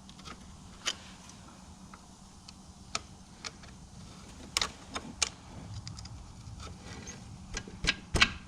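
Light metallic clicks and ticks of hand tools working at the master link of an ATV's roller drive chain, spaced irregularly and coming closer together near the end.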